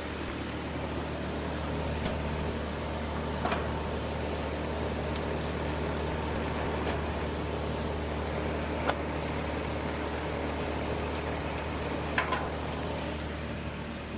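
Heat pump outdoor unit running, a steady hum with fan noise, with a few light clicks scattered through.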